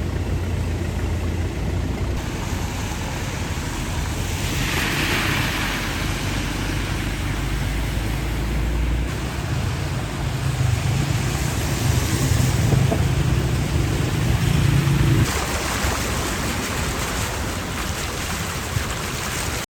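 Cars driving through deep floodwater: a steady wash of moving water and engine rumble, with wind on the microphone. The sound changes abruptly about nine and again about fifteen seconds in.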